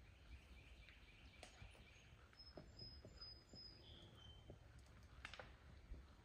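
Near silence: a horse walking on a dirt trail, its hooves landing in a few soft, irregular steps, with faint bird chirps over a low outdoor hum.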